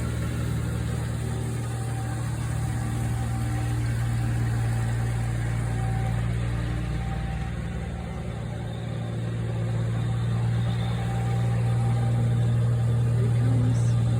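Kubota riding tractor's engine running steadily while mowing, a constant low hum that grows louder in the last few seconds.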